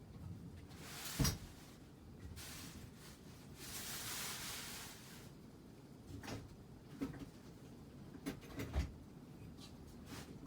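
Several knocks and clicks, the loudest about a second in and a cluster near the end, with a few seconds of rushing hiss in between.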